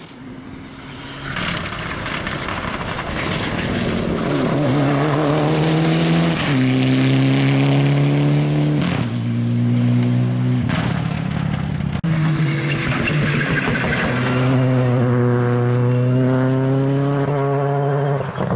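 Rally car engine under hard acceleration. It grows louder over the first few seconds, then its pitch climbs and drops back several times as it shifts through the gears, climbing once more near the end.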